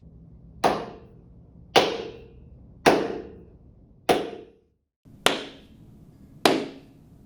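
Single hand claps, one about every second, each followed by a short ringing tail of room echo: a clap test of the meeting room's echo. Four claps, a brief cut to silence a little after the middle, then two more claps.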